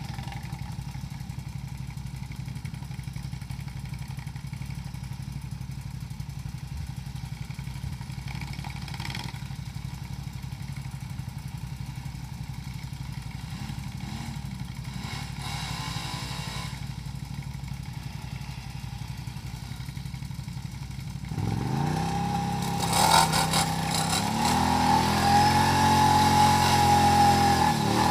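ATV engine idling steadily, then revved hard about two-thirds of the way through, its pitch climbing and falling repeatedly with some clatter, as the quad works through deep mud ruts.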